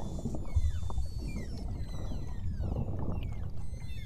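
Beluga whales whistling underwater: many short, overlapping whistles, most of them falling in pitch, over a steady low rumble.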